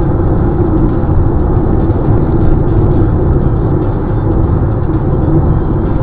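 Steady low drone of a car cruising at highway speed, made by tyre, engine and wind noise, heard from inside the cabin.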